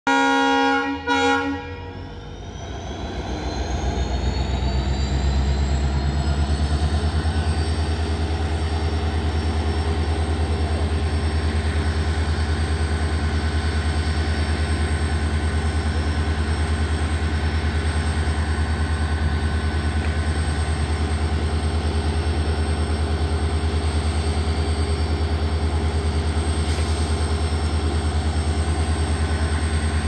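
Two short blasts on an Indian Railways WDP4D diesel locomotive's horn. Then its EMD 16-cylinder two-stroke engine revs up over about five seconds and settles into a steady low hum as the locomotive powers up to pull away with the train.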